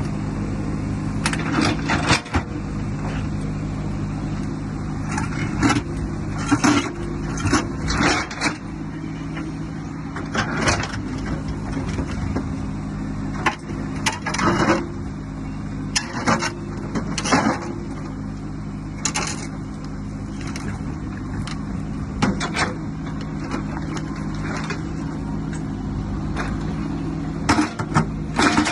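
A motor running steadily with a low hum, with irregular knocks and clatters over it.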